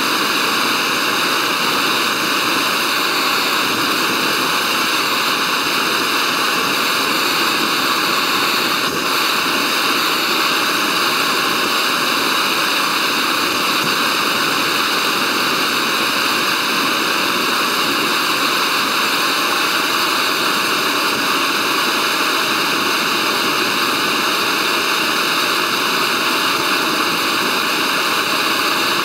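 MSR Pocket Rocket canister stove burning with a steady gas hiss that holds constant throughout. The burner is running below full blast.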